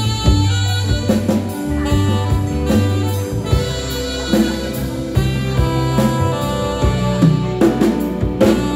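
Live band playing an instrumental passage: a flute carries the melody over electric guitars, electric bass, drum kit and congas, with no singing.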